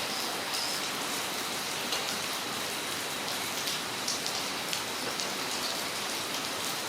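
Steady rain falling on a front yard, an even hiss with scattered sharper drips and splashes.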